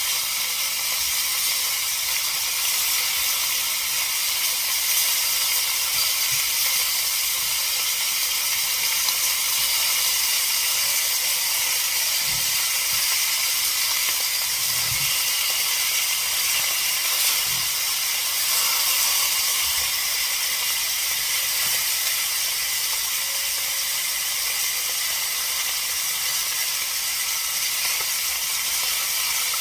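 Beef short ribs searing in a hot stainless steel pan, a steady hiss of sizzling fat, with a few light knocks of tongs against the pan as the ribs are turned.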